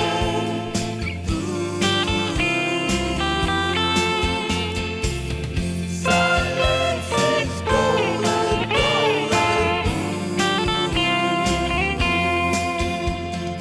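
USA Mosrite electric guitar playing a slow instrumental melody lead, its notes bending and wavering in pitch, over a backing of drums and bass.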